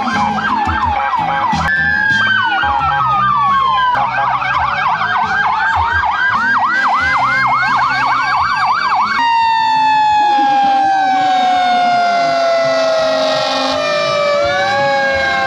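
Emergency vehicle sirens from passing police cars and a fire truck: several fast yelping sirens overlap, then about nine seconds in they cut out, leaving a long wail that falls slowly in pitch, with another siren rising near the end.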